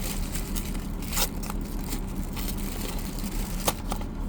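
Crinkling, scraping and a few sharp clicks of a toy blind box being torn open by hand, over the steady low hum of an idling car.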